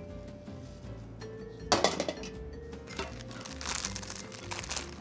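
Background music, with a brief loud clatter about two seconds in, then the crinkling of a plastic noodle packet being handled over a stainless steel mixing bowl.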